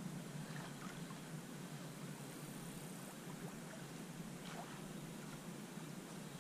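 Faint water lapping and trickling against a plastic kayak hull, with a few light drips or splashes.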